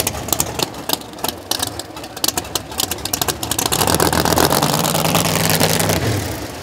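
Drag race car engine running, with rapid uneven pops at first, then a louder, steadier stretch of engine sound from about four seconds in that drops away near the end.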